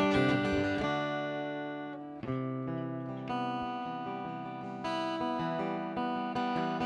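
Acoustic guitar strumming ringing chords in a song's instrumental ending, each chord left to ring before the next strum.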